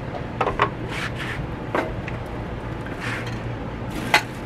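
Handling noise: a few sharp knocks and clatters as a small wooden grill stand is set down on a table and hands rummage in a plastic storage bin, with rustling of plastic wrap between them. The loudest knock comes near the end, over a steady low hum.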